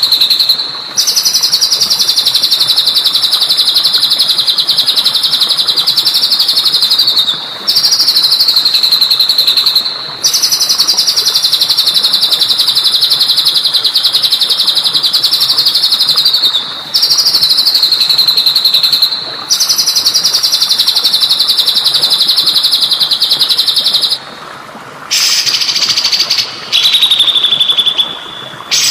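A songbird singing long, rapid, high-pitched trills in phrases of about two to six seconds separated by short breaks, over a steady hiss of trickling water. Near the end the song changes to a shorter, lower, steady note.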